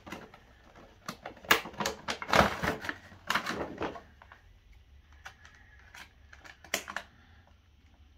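Sharp clicks, taps and rustles of a cardboard and plastic action-figure box and its packaging being handled, busiest in the first half, then a few scattered clicks.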